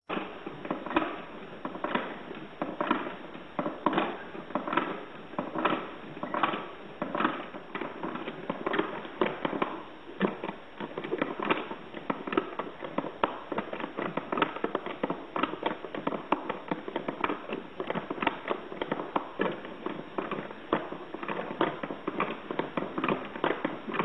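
Hand-cranked cardboard automaton bird toy in motion: its crank mechanism clattering and clicking steadily, with a louder knock about once a second.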